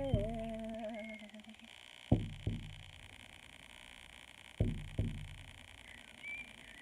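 Large hand-held frame drum beaten in a heartbeat-like double stroke, a pair of beats about every two and a half seconds, each beat ringing low and fading. A woman's voice holds a sung note through the first second and a half.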